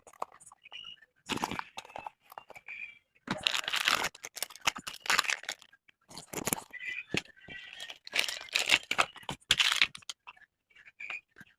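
Packaging being handled and torn open: crinkling and tearing of paper and plastic in irregular noisy bursts with short pauses.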